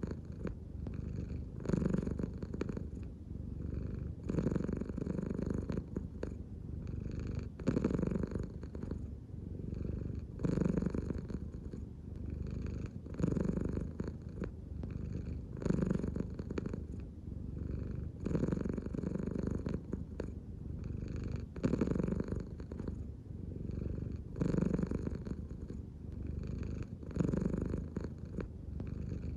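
American Shorthair cat purring steadily, the purr swelling in a regular rhythm about every three seconds as the cat breathes deeply from the belly: the purr of a relaxed cat.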